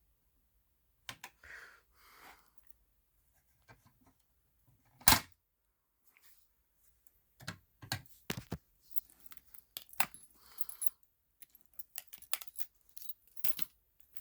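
Fire alarm pull station being handled with its spring refitted: scattered plastic and metal clicks and rattles, with one sharp loud snap about five seconds in and a busier run of small clicks near the end.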